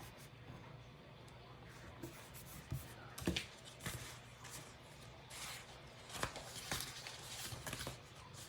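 Pen scratching on planner paper, with scattered light taps and paper rustles.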